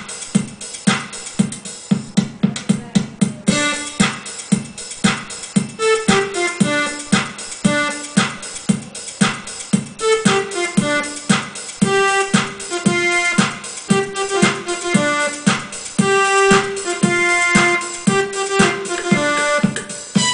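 Electronic keyboard playing a dance rhythm with a steady auto-accompaniment drum beat. A quick drum fill comes about three seconds in, then a melody line in electric-piano tones plays over the beat.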